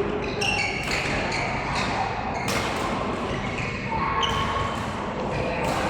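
Badminton rally: sharp racket hits on the shuttlecock at irregular intervals, a second or two apart, with shoes moving on the court.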